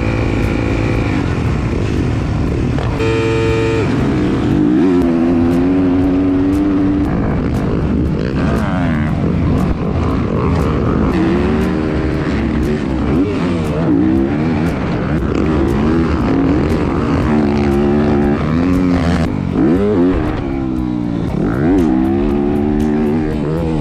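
Yamaha motocross bike's engine, heard from the bike's onboard camera. It runs at high revs about three seconds in, then its pitch rises and falls over and over as the throttle is opened and shut around the track.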